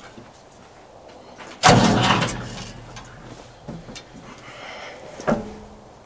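Starter bumping over a Ford 555 backhoe's 3-cylinder diesel engine with its valve cover off: a sudden loud clunk and short turning-over about two seconds in, dying away within about a second. The engine is being inched round to set the valve lash, and a smaller clunk follows about five seconds in.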